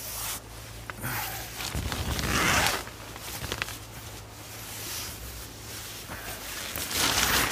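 A dome tent's door zipper being pulled along in a few rasping runs, with the nylon tent fabric rustling; the loudest run comes about two seconds in and another near the end.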